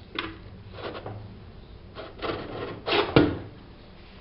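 Wood being rubbed and scraped in several short strokes, ending in a sharp knock about three seconds in.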